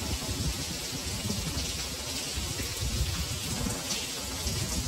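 Heavy rain falling steadily on a street and buildings: a dense, even hiss of drops with an irregular low rumble underneath.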